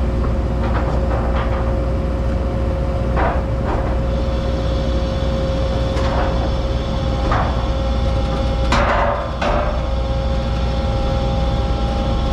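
An engine idling steadily, with irregular metal clanks and knocks as steel pallet racking is unloaded; the loudest two clanks come close together about nine seconds in.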